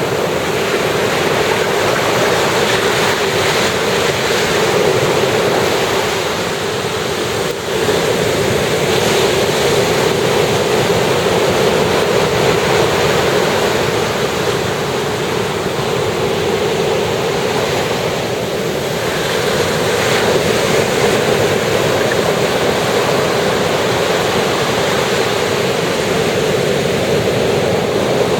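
Ocean surf washing continuously onto the beach, a steady rushing that swells and eases slowly as waves come in.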